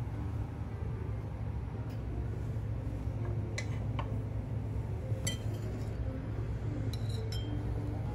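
Ceramic dishes and metal kitchen utensils clinking against each other and the counter: about five sharp, ringing clinks, mostly in the second half, over a steady low hum.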